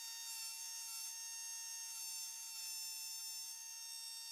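Pneumatic rotary tool (air-driven Dremel-type grinder) spinning a pink grinding stone at high speed against the tip of a steel screwdriver bit. It gives a steady high whine whose pitch wavers slightly.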